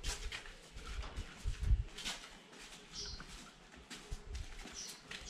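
Footsteps and scuffs on a gritty concrete floor, with low thumps and clicks, and two short, high bird chirps about three and five seconds in.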